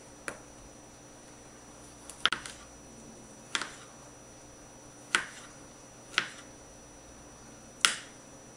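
Knife slicing a kiwi fruit and tapping down on a plastic cutting board: about seven sharp knocks, irregularly spaced one to two seconds apart, two of them close together a couple of seconds in.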